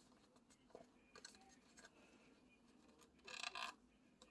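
Near silence with a few faint clicks, then a brief rustle and scrape of a cardboard box being worked open about three seconds in.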